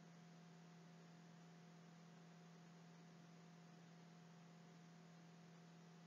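Near silence: a faint steady electrical hum with light hiss, the background noise of the recording.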